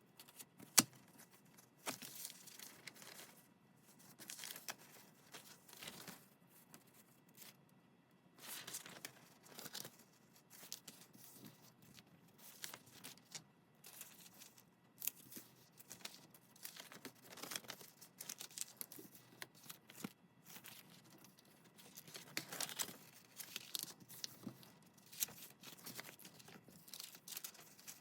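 Paper being handled and torn by hand: repeated short rips and crinkling rustles, with one sharp click about a second in.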